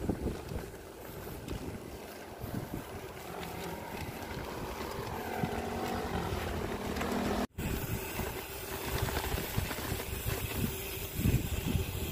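Wind buffeting the microphone of a camera riding on a moving bicycle, with rumbling road noise underneath. The sound cuts out for an instant about two-thirds of the way through.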